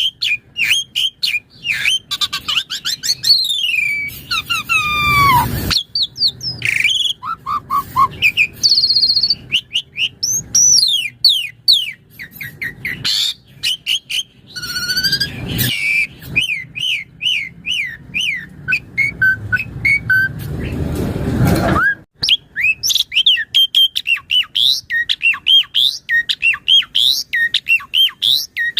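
Asian pied starling (jalak suren) singing at length: a rapid, varied run of chirps, rising and falling whistles and trills, broken twice by harsh, rasping calls.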